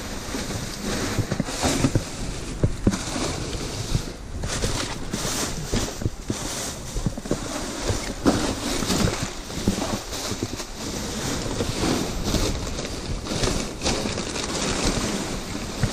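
Clear plastic garbage bags rustling and crinkling as gloved hands shift and dig through them, with irregular small knocks from the boxes and packaging inside.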